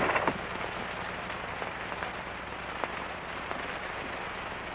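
Steady hiss and crackle of a worn 1940s optical film soundtrack, with no clear action sound over it.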